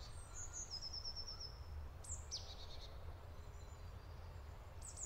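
Faint songbirds calling in woodland: a quick run of short repeated high notes about a second in, a few falling chirps about two seconds in and more near the end, over a low steady rumble.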